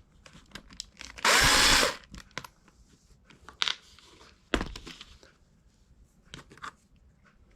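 A power drill runs in one short burst of about half a second, a little over a second in, followed by scattered light clicks and knocks of handling.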